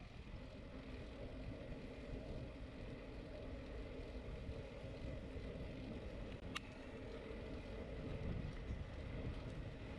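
Wind rumbling on the microphone of a camera riding on a bicycle rolling along an asphalt road, a steady low noise. One sharp click about six and a half seconds in.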